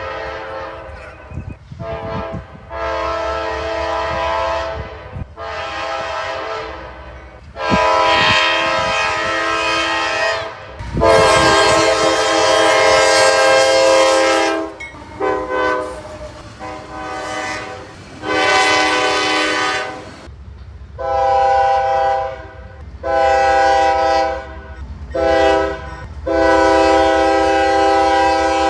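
CSX diesel locomotive air horn sounding a long series of chord blasts, long and short, over the low rumble of the train. The last four blasts run long, long, short, long: the grade-crossing warning signal.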